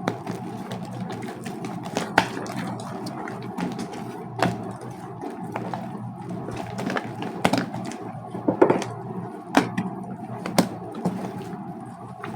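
Homemade slime being worked by hand, giving irregular sticky clicks and pops over a steady low hum.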